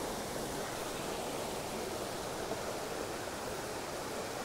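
A small wild trout stream running steadily: an even, unbroken rush of flowing water.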